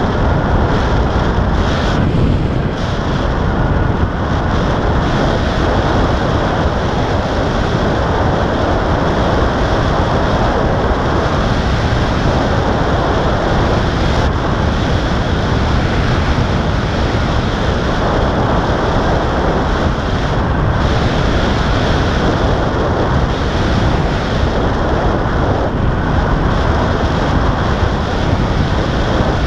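Loud, steady wind rushing over the microphone of a camera carried by a paraglider in flight.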